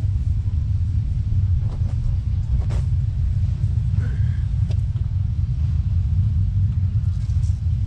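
Wind buffeting the microphone: a continuous, uneven low rumble.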